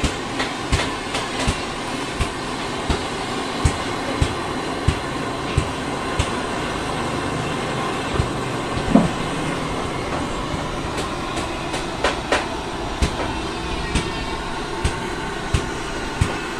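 Bandsaw running with a steady whir and a sharp click about every two-thirds of a second.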